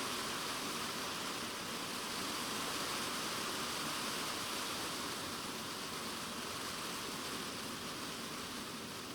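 Typhoon rain drumming steadily on a polycarbonate shed roof, heard from inside the shed as a dense, even hiss of drops that eases slightly near the end.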